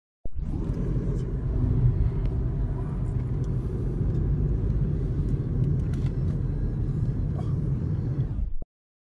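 Steady low rumble of road and engine noise inside a moving car. It starts abruptly a moment in and cuts off abruptly shortly before the end.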